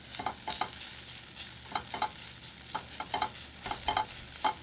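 Prosciutto sizzling in a skillet while a utensil stirs it, making irregular clicks and taps against the pan over a faint steady hiss.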